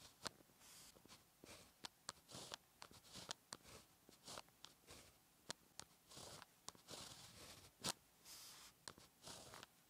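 Fine-tipped pen writing Chinese characters on paper: quiet, short scratchy strokes with sharp taps where the tip meets the paper, the loudest tap about eight seconds in.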